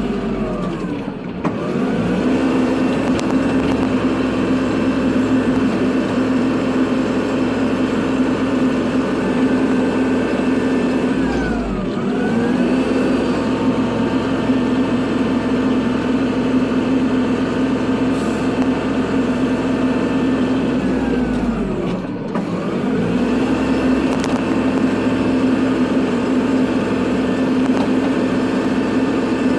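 Kubota tractor's diesel engine running steadily at working revs. Its pitch dips and climbs back three times, about a second in, near the middle and about two-thirds of the way through.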